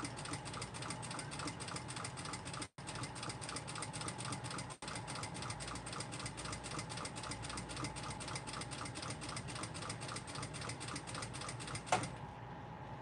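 Sewing machine stitching at a steady pace, the needle mechanism ticking in a fast, even rhythm as the edge of a fabric bookmark is sewn. It stops with a sharper click about a second before the end.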